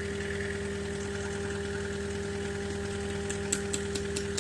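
JCB skid steer's diesel engine idling steadily, with a quick run of faint clicks near the end.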